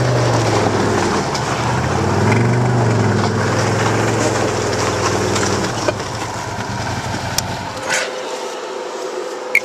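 Ski-Doo Expedition snowmobile engine idling with a brief rev, then shut off about six seconds in so its sound dies away; a few sharp clicks near the end.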